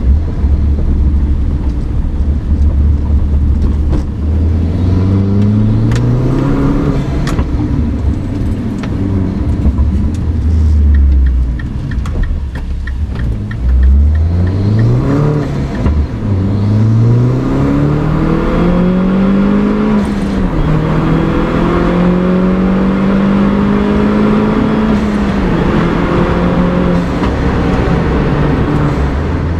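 Mini Cooper R56 John Cooper Works turbocharged 1.6-litre four-cylinder, breathing through a DOS cold air intake, pulling hard through the gears. The engine note climbs, drops at each shift and climbs again several times, holds fairly steady for a while, then falls away near the end.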